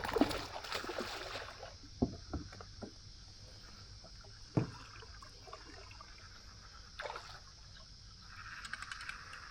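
Faint water sloshing around a kayak, with a few short knocks against the hull, over a steady high insect drone.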